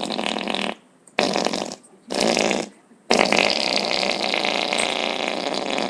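Loud rasping, fart-like noise in bursts: one stops under a second in, two short blasts follow, then a long one starts about three seconds in.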